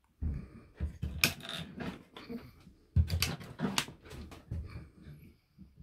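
Overhead caravan cupboard doors being lifted open and handled: irregular clicks of latches and knocks of the wooden doors, with a few louder thuds.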